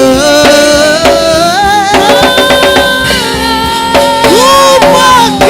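Live worship band with a singer's sustained, wordless or unrecognised vocal line over keyboard and drums, part of a Swahili gospel worship song.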